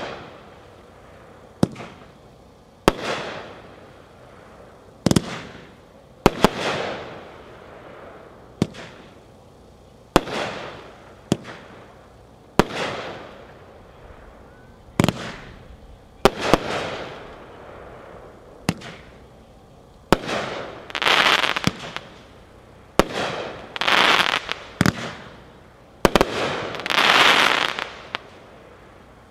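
Phantom Phantasm Premier, a 20-shot consumer fireworks cake, firing: a sharp report every one to two seconds, each trailed by the fading sound of the shell breaking. The last few breaks, from about twenty seconds in, ring on longer, about a second each.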